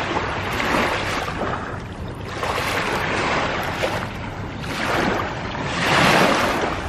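Small waves washing up on a sandy shore in three swells a couple of seconds apart, the loudest about six seconds in.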